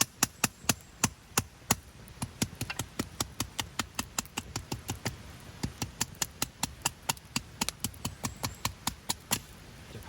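Kitchen knife chopping rapidly on a cutting board, a steady run of about four to five sharp strokes a second, the first few the loudest.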